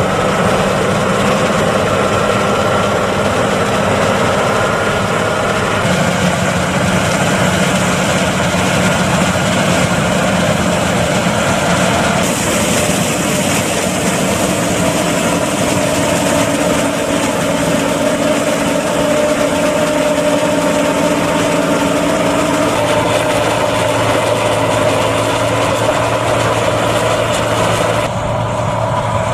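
Heavy farm machinery running steadily under load: a John Deere 9780 CTS combine harvester cutting and threshing corn, and John Deere tractors driving a corn mill. The engine pitch and the mix change abruptly several times.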